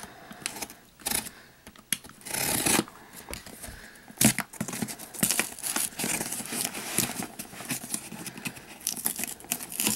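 A utility knife scraping at a holographic foil seal sticker on a cardboard box, then fingers picking and peeling the foil sticker with irregular crinkling, tearing and small clicks.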